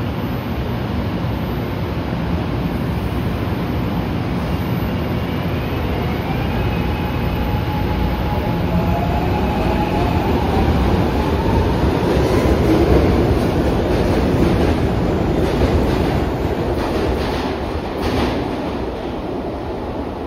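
SEPTA Market-Frankford Line subway train running in the station, a loud steady rumble with an electric whine that rises in pitch over several seconds. Near the end comes a run of wheel clicks over the rail joints.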